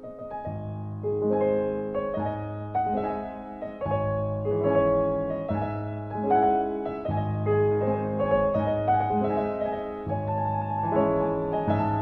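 Background piano music: a gentle, slow melody over held low bass notes.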